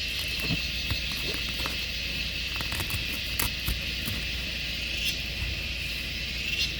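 Small clicks and rustles of fabric and plastic as a seat belt shoulder cushion is handled and tucked into place, over a steady high hiss.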